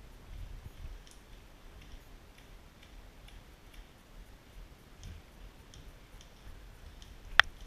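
Faint, irregular clicking about every half second, with a low rumble beneath, then one sharp, much louder click near the end.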